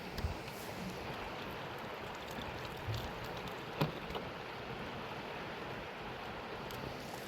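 Mountain river water rushing steadily, with a few brief knocks, the sharpest about four seconds in.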